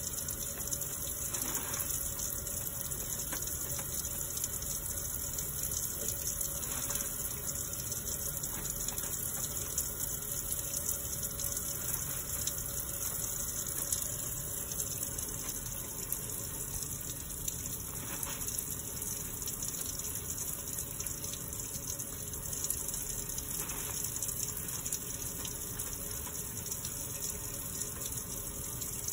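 Tap water running steadily from a faucet into a utility sink while hands are washed under the stream.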